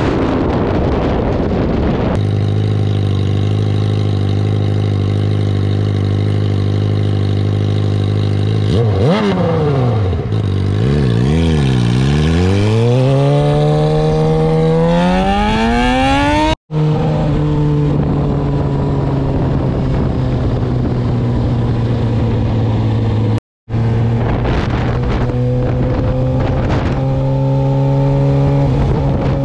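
Suzuki GSX-R600 sport bike's inline-four engine running at a steady pitch, then wavering up and down before climbing steadily as it revs up. After a brief dropout it holds a steadier, higher note that sags slightly, breaks off once more, then rises slowly.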